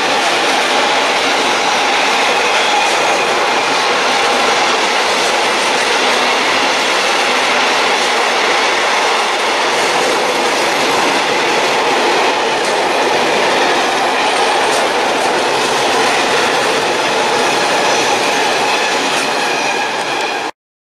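Freight train's wagons rolling past at speed, a steady rail rumble and hiss with a few faint wheel clicks. The sound cuts off suddenly near the end.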